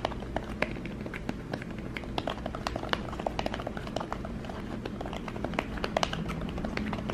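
Typing on an Apple iPad Smart Keyboard Folio: a quick, irregular run of light taps on its fabric-covered keys, a cute-sounding clatter.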